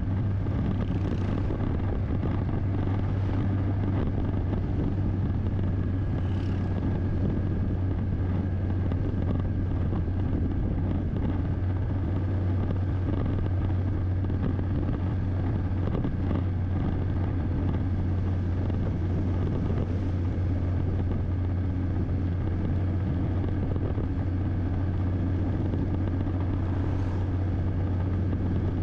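Car driving at a steady speed: even engine and road noise with a strong steady low hum.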